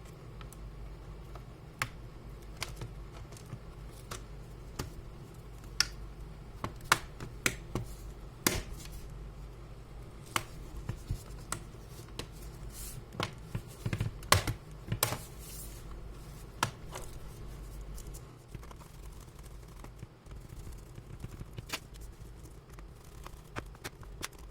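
Irregular sharp clicks and small taps of hands working on a laptop's plastic case and internal parts, over a steady low hum.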